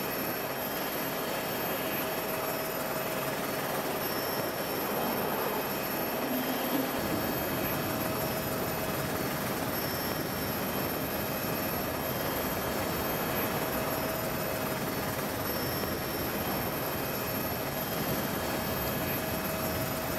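Steady helicopter noise, the engine and rotor drone of the aircraft carrying the camera, with a constant hum-like tone running through it; the low rumble grows a little stronger about seven seconds in.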